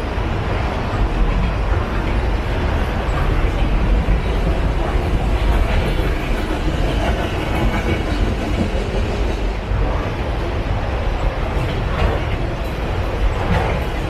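Freight train of enclosed autorack cars rolling past: a steady rumble of steel wheels on rail, with a few light knocks in the last few seconds.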